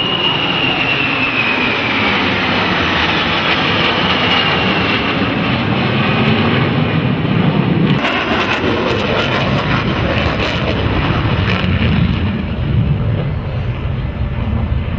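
Jet noise from a formation of F/A-18 Hornet fighters passing overhead, a high whine falling in pitch as they go by. About eight seconds in the sound changes abruptly to the jet noise of a single Hornet in a fast banking pass.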